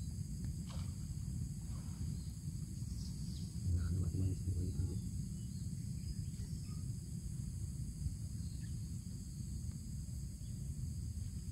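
Steady high-pitched insect chorus over a low rumble, with a few faint bird calls. About four seconds in there is a brief, louder low murmur.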